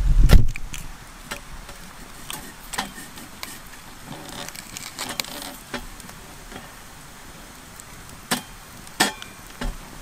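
A couple of heavy knocks as the wooden pothanger is handled at the start, then a wood campfire crackling with scattered pops, two sharp ones close together near the end.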